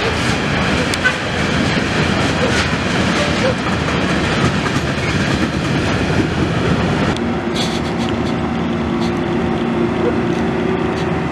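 Freight train of tank wagons rolling past close by, its wheels clattering over the rail joints. About seven seconds in, the clatter gives way to a steadier rumble with a low hum.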